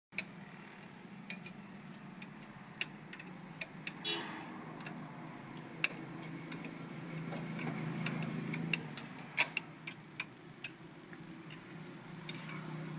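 Irregular light metallic clicks and taps of hand tools and parts being handled during gearbox seal work, over a steady low hum.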